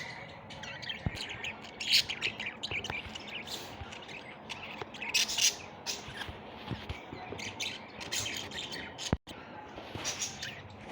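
Several birds chirping and squawking in quick, irregular clusters of short, high-pitched calls. The sound cuts out for an instant about nine seconds in.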